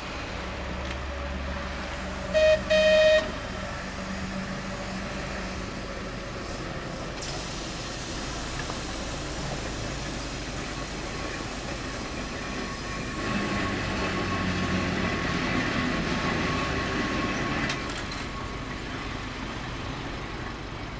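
Two short horn toots about two and a half seconds in. Then Manx Electric Railway tram No 7 and its trailer run along the tramway, the wheels and motors growing louder as the cars pass close between about 13 and 18 seconds, then easing off.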